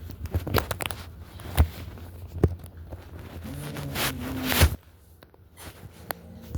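Shuffling and a couple of sharp knocks, then a low growl from a pet dog for about a second past the middle, swelling before it cuts off.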